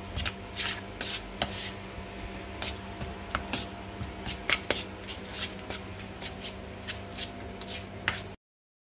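A metal utensil stirring and mashing canned tuna in a plastic bowl, with irregular clicks and scrapes against the bowl several times a second over a steady low hum. The sound cuts off to silence shortly before the end.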